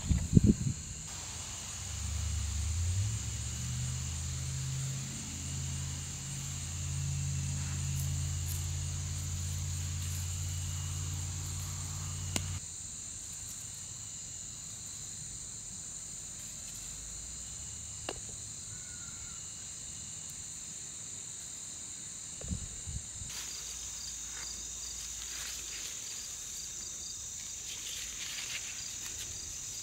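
Steady high-pitched insect chorus. For the first twelve seconds or so a low droning hum runs under it and cuts off abruptly, and a few faint clicks and rustles come later.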